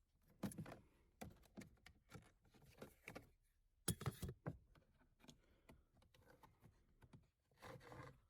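Faint handling noises from the car's cabin air filter housing being worked on: a run of short plastic clicks, knocks and scrapes, the loudest knock about four seconds in.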